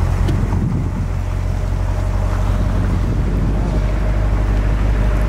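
Wind buffeting a handheld camera's microphone: a loud, steady low rumble under a rushing noise.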